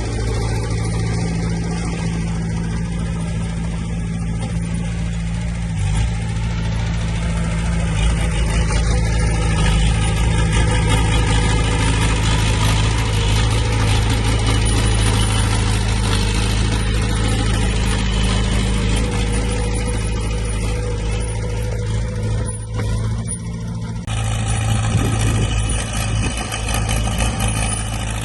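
Diesel engine of heavy earthmoving equipment running steadily under work, with noise from the machine at work over it; the sound changes abruptly about 24 seconds in.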